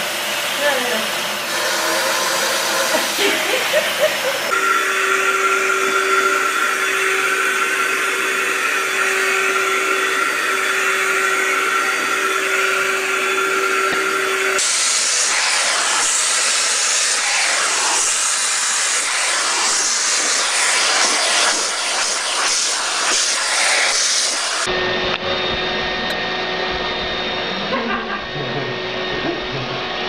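Vacuum cleaners running steadily: a continuous motor whine with the hiss of suction. Its pitch and tone change abruptly about four, fifteen and twenty-five seconds in, as one vacuum gives way to another.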